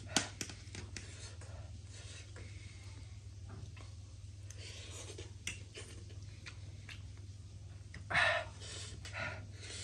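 Eating at a table: small clicks of cutlery against a plate and soft mouth sounds over a low steady hum. A short loud breathy burst comes about eight seconds in, with a smaller one after it.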